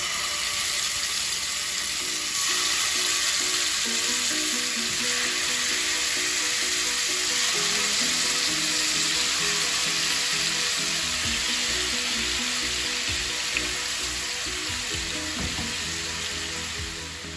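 Marinated chicken pieces sizzling as they fry in hot oil in a pan; the sizzle steps up about two seconds in as more pieces go in, then holds steady.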